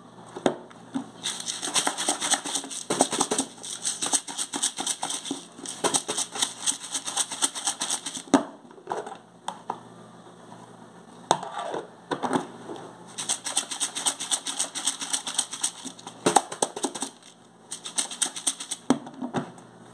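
Plastic lid being pressed onto and worked around the rim of a plastic food container, giving several spells of rapid crackly clicking with short pauses between.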